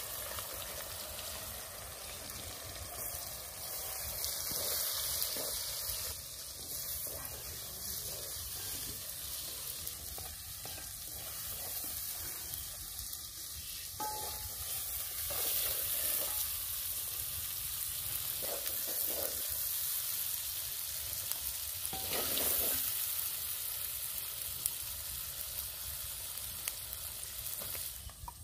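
Food sizzling as it fries in oil in a clay pot over a wood fire, with occasional short scrapes of a wooden spatula stirring it.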